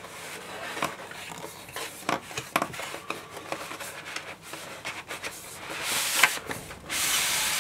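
Handling of a cardboard box: scattered light taps and rustles, then about two seconds of steady rubbing hiss near the end as the printed outer sleeve slides off the inner boxes.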